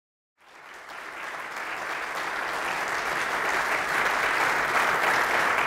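Audience applauding, starting about half a second in and growing steadily louder.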